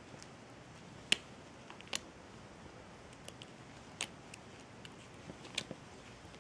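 Scattered light clicks and ticks from a kitten wrestling and biting a crocheted toy on a rug, the sharpest about a second in and a few more spaced a second or two apart, over a low steady hiss.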